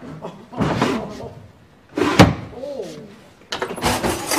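Kitchen cupboard doors and drawers banging and clattering in three rough bursts as someone rummages through the cabinets, with a brief voice sound between them.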